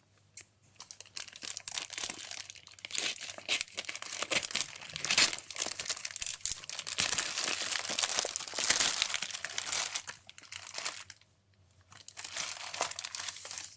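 Crinkly delivery packaging being handled and torn open by hand: a long run of irregular crackling and tearing that stops about 11 seconds in, then a shorter stretch of crinkling near the end.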